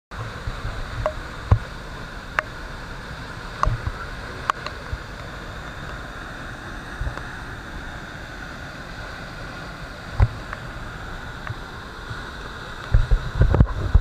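Harvalem waterfall in monsoon flow: a steady rush of heavy falling water. A few sharp clicks and low bumps on the microphone come through, growing heavier near the end.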